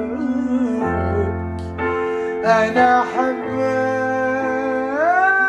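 A male voice singing a slow Arabic tarab love song over sustained electronic keyboard chords. The voice comes in about halfway through on a drawn-out "ana" and glides up to a held note near the end.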